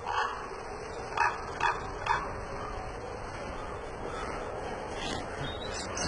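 A few short, sharp animal calls about half a second apart, starting about a second in, and another one near the end, over a steady hiss.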